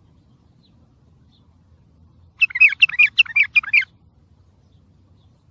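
Wild bulbul singing one short, quick phrase of about eight rapid warbled notes about halfway through, over a faint low background hum.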